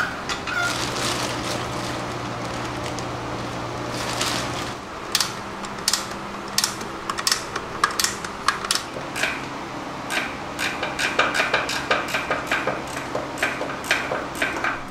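A steady hum for about the first four seconds, then irregular metallic clinks and clanks of tools and parts, coming faster after about ten seconds.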